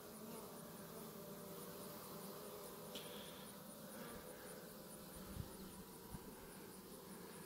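Honeybees buzzing faintly and steadily around an opened hive, with a few faint ticks.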